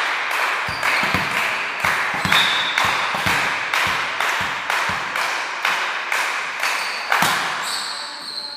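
Spectators clapping in a steady rhythm, about two claps a second, with a low thud on each beat. The clapping echoes in a large sports hall and stops about seven seconds in.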